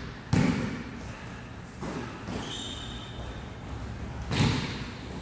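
Basketball bouncing on a hardwood gym floor: one bounce about half a second in and another near the end, with a brief high sneaker squeak in between. The hits echo in the large hall.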